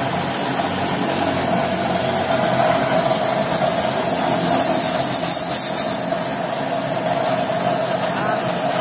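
Wood lathe running steadily with a large turned wooden bottle spinning on it, giving a constant motor hum. A brighter hiss rises over it for a few seconds in the middle.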